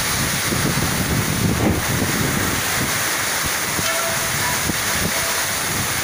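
Torrential rain in a strong wind: a steady rush of rain beating on corrugated metal roofs, with gusts buffeting the microphone in low rumbling surges.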